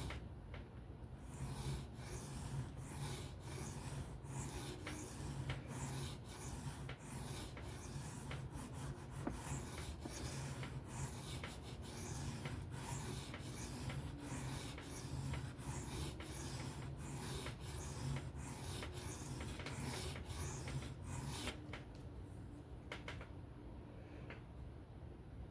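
A folding-knife blade being stroked freehand across a whetstone, with steady repeated scraping strokes, about one and a half a second, which stop near the end. The sharpener is bearing down with a lot of pressure while reprofiling the edge.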